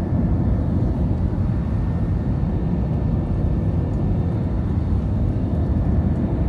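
Airliner cabin noise heard from inside the plane: the steady low noise of the jet engines and air rushing past the fuselage, with no change in level.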